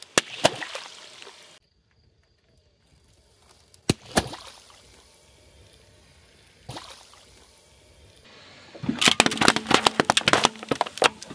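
A cola-filled balloon bursting under a car tyre with sharp pops and a splash of liquid, with a couple more loud cracks about four seconds in. Near the end, a rapid run of crunching cracks as a car tyre crushes a row of aluminium Coca-Cola cans.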